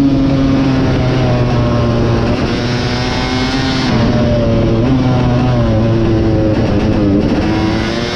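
Two-stroke 250 cc motocross engine of a KTM 250 SX racing at high revs. The engine note holds steady, then drops and climbs again a few times, around four seconds in and near the end.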